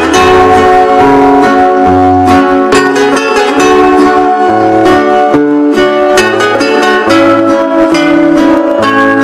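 Dance music played loud over a sonidero's sound system: a steady beat with a bass line and a plucked-string melody.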